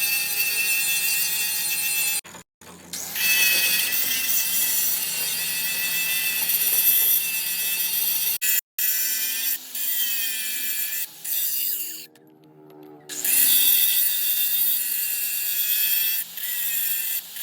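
Electric power tool running with a steady high whine, in several short edited bursts; its pitch falls as the motor winds down before some of the breaks.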